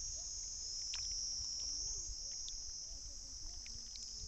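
A steady, high-pitched drone of insects, with a few faint clicks and a low rumble beneath it.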